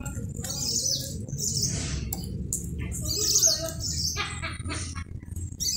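Small birds chirping in repeated bursts of high, gliding chirps, over a low steady rumble.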